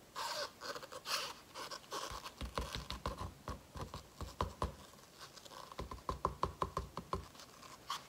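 Handling noises from a paint cup and stretched canvas on a padded work table: light scratching and rustling, then from about two seconds in a quick run of soft taps and dull knocks, about five a second.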